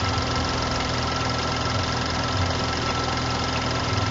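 BMW N55 turbocharged straight-six idling steadily, heard close at its serpentine belt drive, with a thin steady whine over the idle. The owner takes the belt tensioner, which moves around while the engine runs, for worn and due for replacement.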